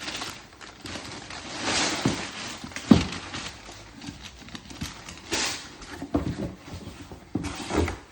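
A gift being unwrapped and its box handled: bursts of rustling with scattered knocks and thumps, the sharpest thump about three seconds in.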